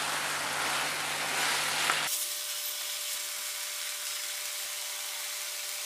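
Mushroom masala sizzling and bubbling in a frying pan on high heat, with a wooden spatula scraping and stirring through it for the first couple of seconds. The water released by the mushrooms is cooking off. About two seconds in, the sound abruptly turns to a thinner, steady sizzle.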